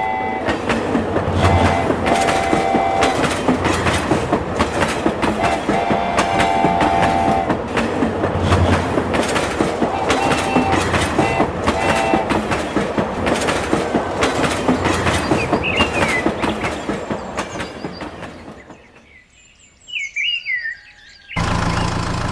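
Battery-powered toy steam locomotive running on plastic track, with a fast clattering and a whistle sounding several times. The clatter fades away near the end, a few short chirps follow, and a louder engine-like hum starts just before the end.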